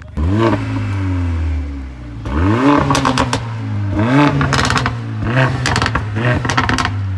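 Mercedes-AMG A45's turbocharged four-cylinder engine revved hard at standstill about five times, each rev rising in pitch and falling back with a burst of exhaust crackles and pops. The engine is still cold.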